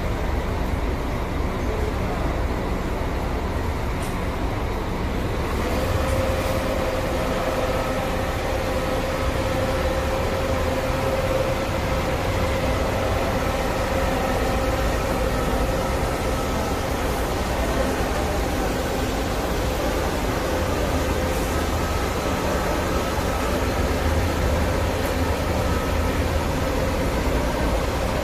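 Buses and road traffic running steadily, with a steady mechanical whine coming in about six seconds in and holding for several seconds.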